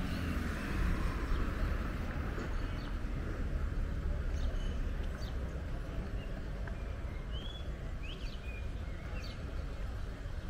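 Small birds chirping in scattered short calls over a steady low rumble of outdoor background noise.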